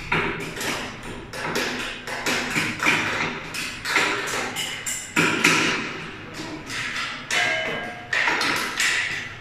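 Irregular knocks and taps of metal door-frame and bracket parts being handled and fitted by hand, a few with a brief metallic ring.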